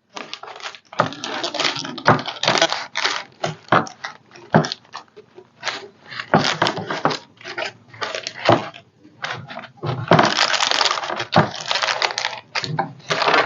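Paper crinkling and rustling in irregular bursts with small crackles and taps, as a decoupaged napkin on a tray is pressed and handled, with a longer stretch of rustling about ten seconds in.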